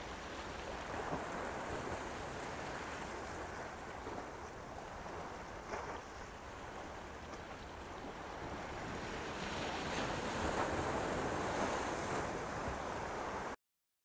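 Small ocean waves washing in over rock ledges at the water's edge, a steady rush of surf that swells louder about nine seconds in, then cuts off suddenly shortly before the end.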